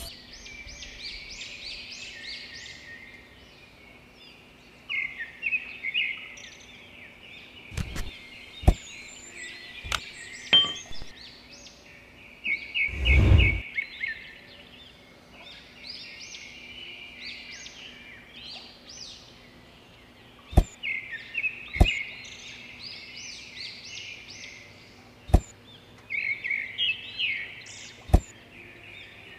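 Small birds chirping and twittering in repeated short phrases, with occasional sharp clicks and one louder dull thump a little before halfway.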